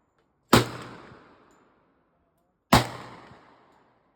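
Two gunshots about two seconds apart, each ringing out in a long echo that dies away over about a second.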